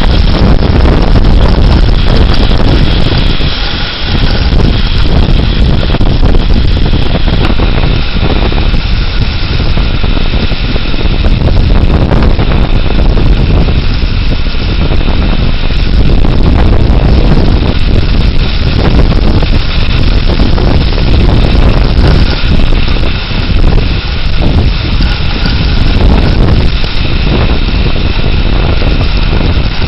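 Severe thunderstorm winds blowing hard and continuously, loud and buffeting the microphone, with a brief lull about four seconds in.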